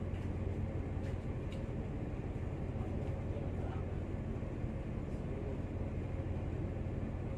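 Steady low drone of a cargo ship's machinery while the ship manoeuvres off its berth under bow thruster at maximum.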